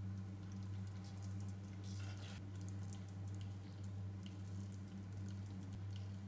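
Faint wet squishing and small clicks as sauce-coated chicken feet adobo is spooned onto a ceramic plate, with a short scrape about two seconds in. A steady low hum runs underneath.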